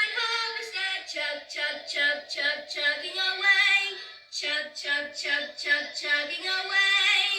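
A woman and young children singing a simple song together, unaccompanied, in short rhythmic syllables.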